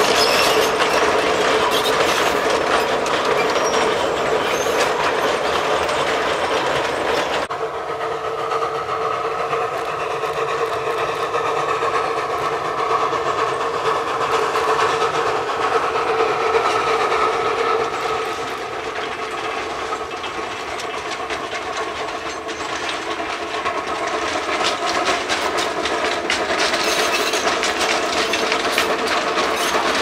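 Narrow-gauge (760 mm) steam locomotive hauling a short train, its exhaust and the wagons' wheels clattering over the rails in a continuous rumble. The sound changes abruptly about seven seconds in, dips a little past the middle, and grows again toward the end.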